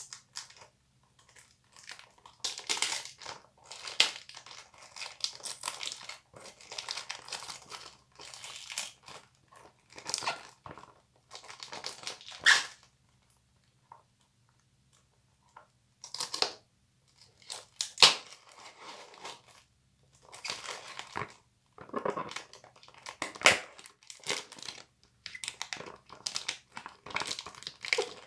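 Cardboard box of Modesa deodorant bar soap being torn open by hand: bursts of crinkling and tearing with sharp snaps, stopping for a couple of seconds about halfway through.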